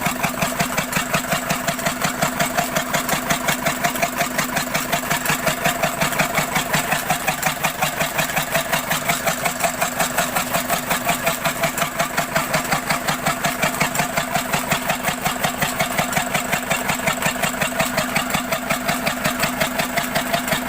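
Field Marshall diesel engine running steadily, with an even beat of about five or six pulses a second.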